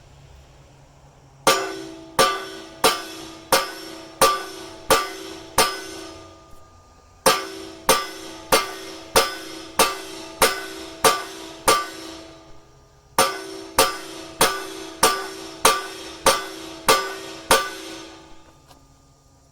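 Hammer blows on the steel of an excavator bucket tooth and its fittings, each blow ringing. They come in three runs of about eight strikes, about one and a half a second, with short pauses between runs.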